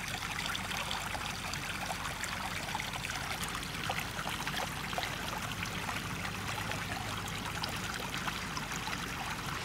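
Small mountain stream running over rocks, a steady trickling and babbling.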